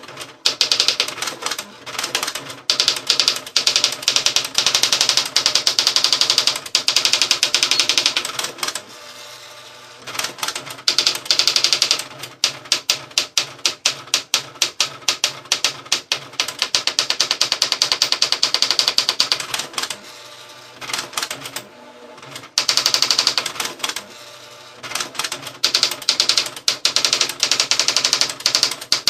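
Olivetti ET Personal 510 electronic daisywheel typewriter typing its built-in auto demo by itself: loud runs of rapid, even strikes, broken by short pauses between lines.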